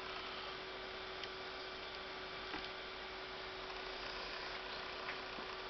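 Steady low electrical hum over a background hiss, with a few faint small clicks.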